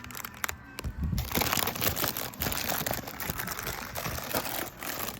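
Small plastic bags of diamond-painting drills being rummaged through, giving a string of light crinkles and clicks.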